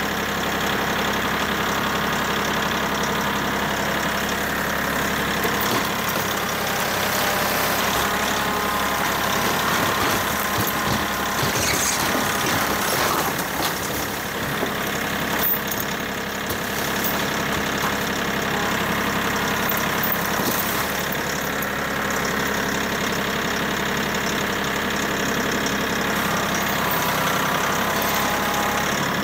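Kioti tractor's diesel engine running steadily under load while it pulls on a logging chain. Around ten to thirteen seconds in, a run of cracks and thuds as the rotted shed framing gives way and the roof section comes down.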